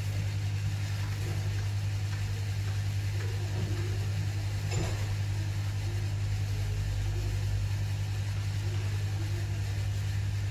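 Yihua 952D+ rework station's hot air running at airflow setting 6 and about 360 °C: a steady low hum with a hiss of air. A light tap sounds about halfway through.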